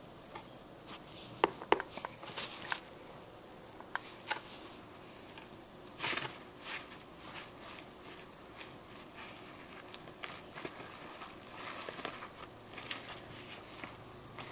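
Cardboard shoe box and the tissue paper inside it rustling and scratching as a Bengal cat shifts and paws about in it: scattered light clicks and rustles, with two sharper clicks about a second and a half in and a longer rustle around six seconds in.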